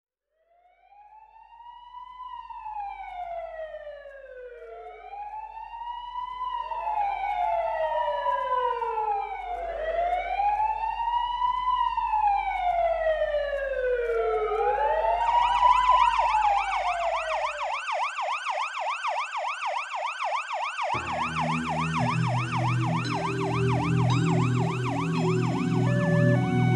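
Several emergency-vehicle sirens wailing together, each slowly rising and falling and overlapping the others. About fifteen seconds in they switch to a fast yelp. Slow music with low sustained keyboard notes comes in underneath near the end.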